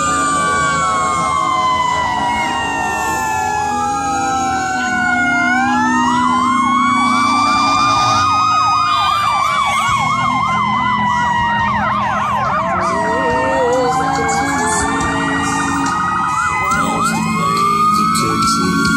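Several fire truck sirens sounding at once: overlapping slow rising-and-falling wails, with a fast warbling yelp through the middle, over the low rumble of truck engines.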